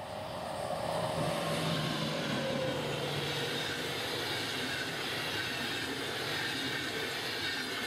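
A DB Class 101 electric locomotive and its Intercity coaches passing at speed. Wheels on rail make a steady rumble and hiss that builds over the first second as the locomotive goes by. A faint hum sinks slightly in pitch during the first few seconds.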